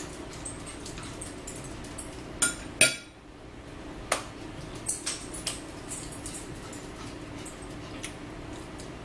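Sharp clinks and knocks of cutlery and dishes at a dining table: two near-together knocks about two and a half seconds in, the second the loudest, then several lighter clicks over the next few seconds, over a steady low hum.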